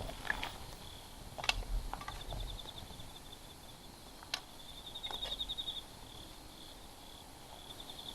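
An insect trilling in pulsing runs, strongest twice mid-way, over quiet outdoor background, with a few isolated sharp clicks.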